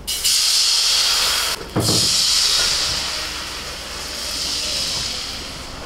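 Thin rice-flour batter sizzling loudly as it hits a hot, ghee-greased steel wok. About two seconds in there is a brief break and a low knock, then the hiss carries on and slowly fades.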